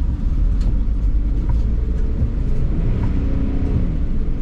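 Vehicle engine and road noise heard from inside the cab while driving, a steady low rumble.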